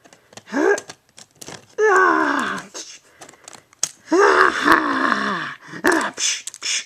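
A person's voice making wordless fight noises, grunts and groans: a short one, a longer falling one about two seconds in, and a long drawn-out, wavering one from about four seconds. Light clicks of plastic toy figures knocking together come between them.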